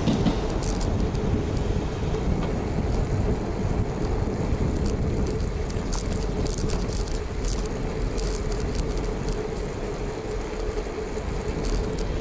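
Riding noise picked up by a camera on a moving Renault Platinum Light 8 bicycle: wind on the microphone and road rumble with passing traffic, a faint steady hum, and scattered clusters of light high-pitched ticks and rattles.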